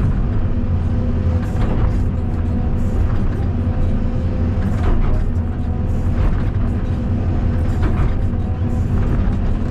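Caterpillar 320 D2 hydraulic excavator's diesel engine running steadily under working load, a constant low drone with a thin steady whine above it, as the machine cuts down the slope.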